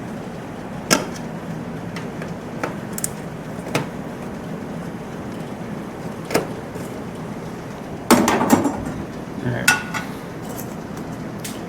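Scattered metallic clinks and knocks of hand tools and car parts being handled. There are single sharp strikes every second or few, and a short rattling cluster about eight seconds in, over a steady background hiss.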